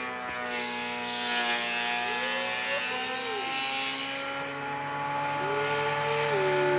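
Bauer benchtop thickness planer running with a steady motor whine as a rough pine board passes through, its pitch dipping twice as if under load.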